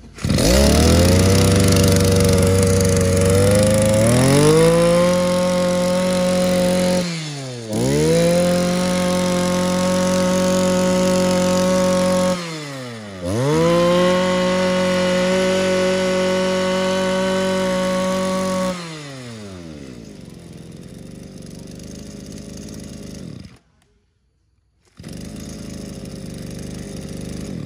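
Echo Kioritz 243 24 cc two-stroke brush cutter engine catching at once and idling, then held at high revs three times for several seconds each, dropping briefly between. It settles back to idle and cuts off about 23 seconds in. A steady hiss-like noise follows near the end.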